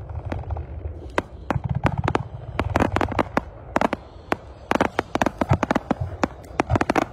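Aerial firework shells bursting in a display: a rapid, irregular run of sharp bangs and cracks, several a second, over a low rumble.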